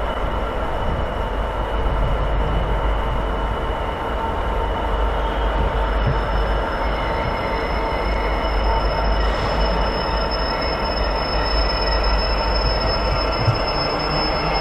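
A Class 66 diesel locomotive's EMD two-stroke V12 engine running with a steady low rumble as the locomotive moves slowly along curved platform track. A thin, high wheel squeal comes in about six seconds in and grows stronger.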